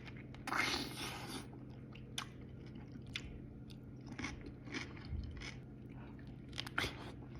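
Close-up eating sounds of a mango sandwich: a bite about half a second in, then chewing with scattered short, moist mouth clicks.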